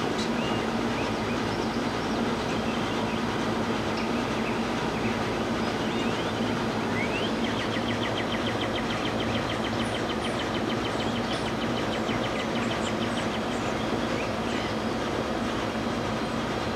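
A steady mechanical drone with a low hum runs throughout. Small birds chirp faintly over it, with a fast trill of high repeated notes about halfway through.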